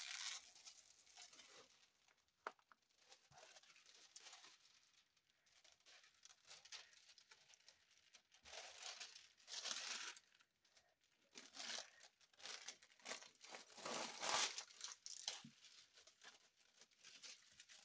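Thin clear plastic protective film on a diamond painting canvas crinkling as it is smoothed and lifted by hand, in a few irregular rustling spells with quiet gaps, the loudest about two-thirds of the way in.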